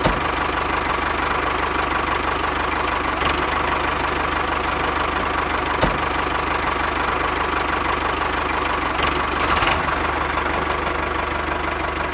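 Tractor engine running steadily at idle with an even knocking beat, broken by a sharp click about six seconds in.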